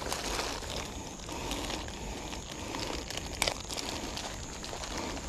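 Clear plastic bag crinkling and rustling as it is handled by hand, with irregular crackles and one sharper click a little over three seconds in.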